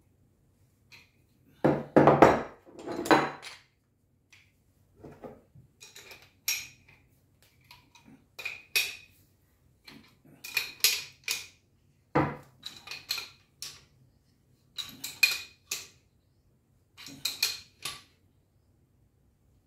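Metal hand tools and pipe fittings being picked up and handled on a wooden table: irregular clinks and clatters, with the heaviest knocks about two seconds in.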